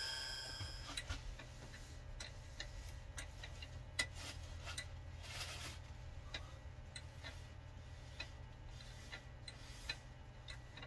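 Wood lathe turning a bowl slowly, a low steady hum with light ticks about twice a second, while wax finish is rubbed onto it with paper towel.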